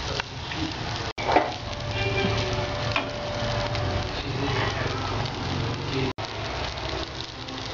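Boiled noodles sizzling in oil in a non-stick frying pan, with a spatula stirring them and a few light clicks against the pan.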